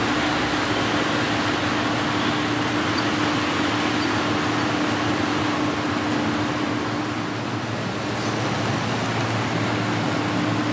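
Metre-gauge model electric trains running on the layout, a steady whirring rumble with a steady hum that dips briefly about seven seconds in, over a constant hiss of room noise.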